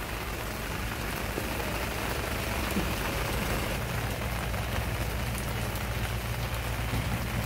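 Steady rain falling as an even hiss, with a low steady hum underneath.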